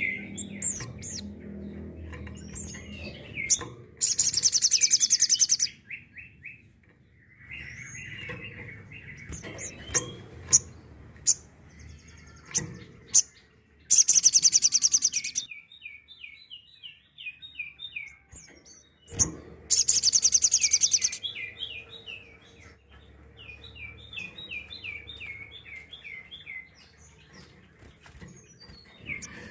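Sogok ontong, a spiderhunter, singing its 'tembakan' song: three loud, very fast, high-pitched trills of about a second and a half each, with runs of quick down-slurred chirps in between.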